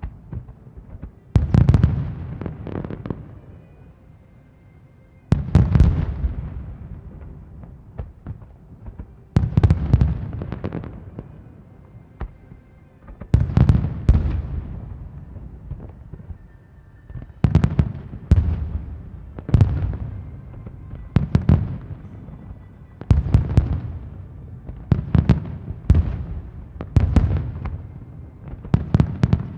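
Aerial fireworks shells bursting, each burst a cluster of sharp cracks trailing off into a rolling echo. The bursts come about every four seconds at first, then about every two seconds toward the end.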